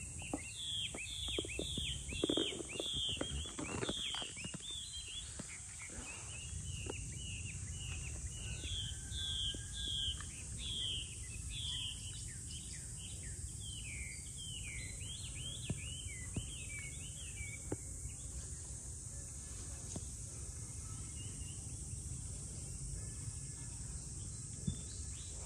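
A bird calling a rapid series of short chirps, about two a second, stopping about two-thirds of the way through, over a steady high insect drone. A few rustles and taps in the first few seconds.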